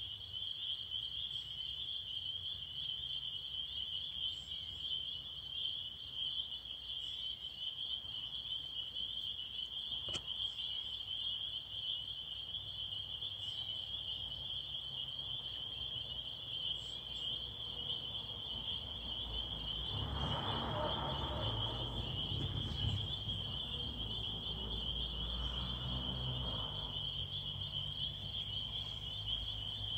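A steady, high-pitched evening chorus of many small calling animals, one unbroken trill. Starting about two-thirds of the way in, a low rumble swells under it for several seconds and then fades.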